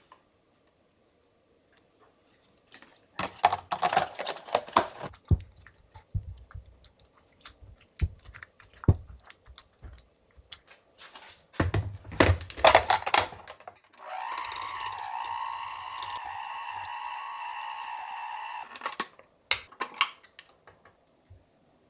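A wire whisk clattering against a glass bowl in quick bursts as it beats stiff butter, then an electric hand mixer running with a steady whine for about five seconds before it stops. A few clinks follow as the butter is scraped off the beaters.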